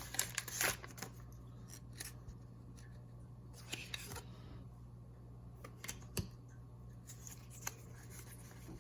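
Faint handling of a Pokémon TCG booster pack and its cards: scattered small rustles and clicks of the foil wrapper and card stock.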